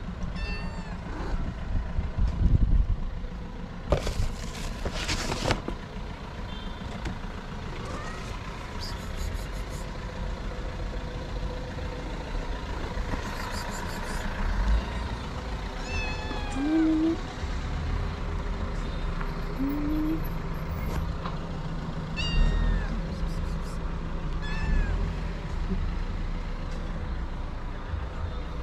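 Stray kittens meowing on and off, short high mews that fall in pitch, over a steady low rumble of vehicle traffic. There is a brief hiss about four seconds in.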